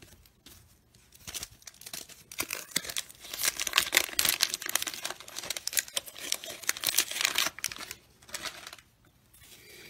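A baseball card pack wrapper being torn open and crinkled by hand, a dense crackling that runs for several seconds and dies away near the end.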